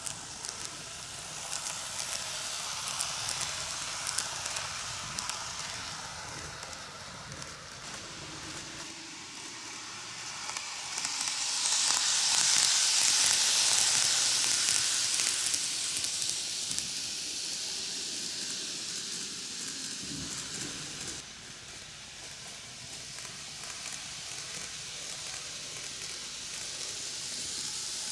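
N-gauge Greenmax Keio 1000 series model train running on Tomix canted track: a steady rolling hiss of wheels and motor. It swells as the train passes closest, a little past the middle, then fades away.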